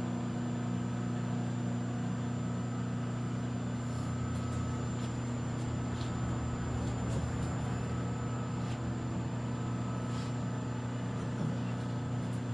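Rotary phase converter running, a steady electric-motor hum that holds even throughout, with a few faint clicks.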